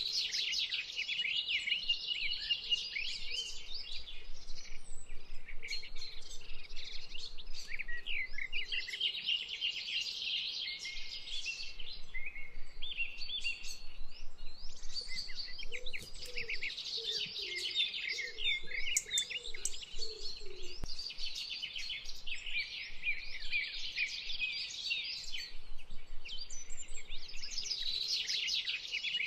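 A chorus of many small birds chirping and trilling at once, high-pitched and unbroken.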